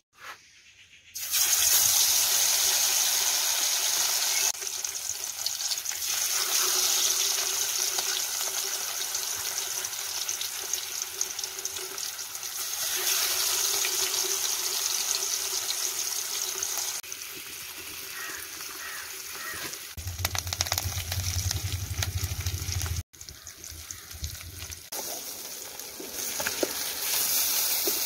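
Sardines frying in hot oil in a steel kadai: a steady, loud sizzle that starts abruptly about a second in and carries on, changing in level several times.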